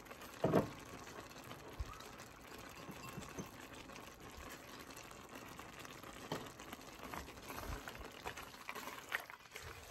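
A pan of rice, green beans and water simmering: a faint, steady bubbling hiss. A few soft clicks and knocks come through it, the loudest about half a second in.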